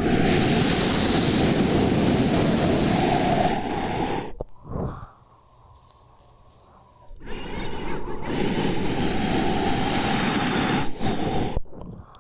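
Loud, harsh rushing noise in two long stretches, with a quiet gap of about three seconds between them.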